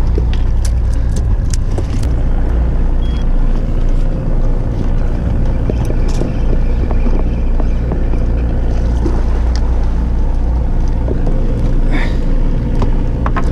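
Fishing boat's engine running steadily with a low hum, with scattered clicks and knocks of tackle being handled.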